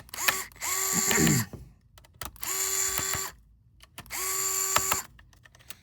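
Electric precision screwdriver backing out laptop screws: three short runs of about a second each, the motor quickly rising to a steady whine every time, with small clicks between the runs.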